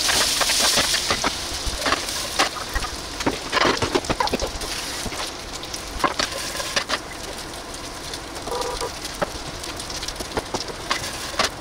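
Food sizzling in a frying pan, with scattered clicks and scrapes of a cooking utensil; the hiss is loudest at first and gradually eases off.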